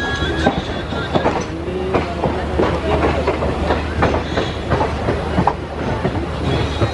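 Wheels of a moving passenger train clattering over rail joints and points, with a steady low rumble and rapid irregular clicks, heard from an open coach door.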